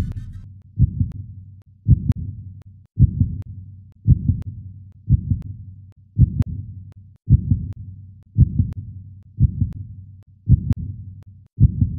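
Heartbeat sound effect: a steady run of low double thumps (lub-dub), a little under one beat a second, each fading before the next.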